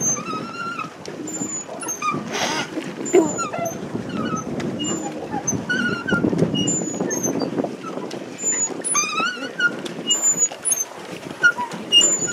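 Pedal paddle boat's drive squeaking with each turn of the pedals: short high squeals and chirps about once a second, over a low rushing noise of the paddle wheel churning water.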